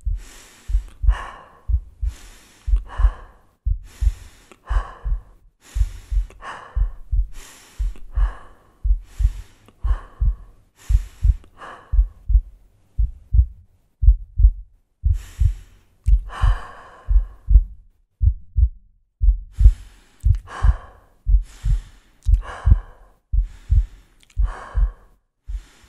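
A heartbeat, a low double thump about once a second, with deep breaths in and out roughly every two seconds layered over it; the breathing pauses for a few seconds around the middle.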